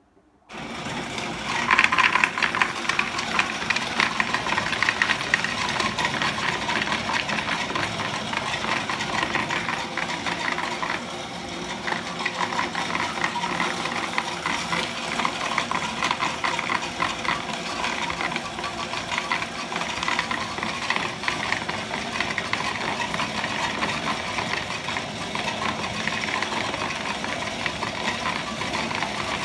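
Cashmax Procoin CMX30 coin counting machine running steadily, with coins rattling and clicking rapidly through it as it counts. It starts about half a second in and gets louder about a second later.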